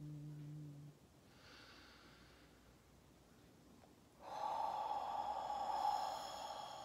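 A crystal singing bowl's steady low hum with overtones rings out and stops about a second in. About four seconds in a long, breathy exhale starts suddenly and carries on, with faint high ringing tones above it.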